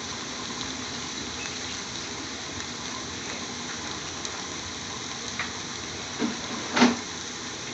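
Pan of saag spinach cooking over a low gas flame, sizzling steadily. Two brief knocks about six and seven seconds in.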